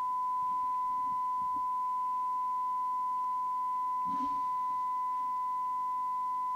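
Steady pure test tone with a faint overtone, coming from a Cobra UK75ST CB radio's speaker as the receiver demodulates a tone-modulated S9-strength (100 microvolt) signal from a signal generator during receive alignment.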